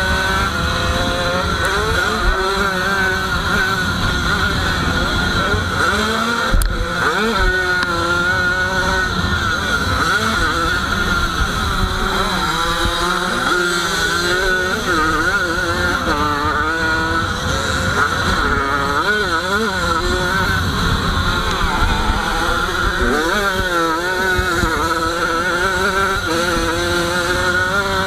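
Small dirt-bike engine heard from on board, its pitch rising and falling over and over as the rider opens and closes the throttle through the track's bends, with wind rushing over the microphone. A single sharp knock about six and a half seconds in.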